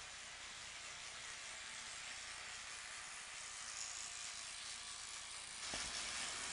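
Steady hiss of steam, growing slowly louder and stepping up about five and a half seconds in.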